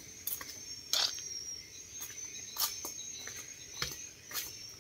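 A cricket trilling steadily at a high pitch, with a handful of scattered knocks and clicks.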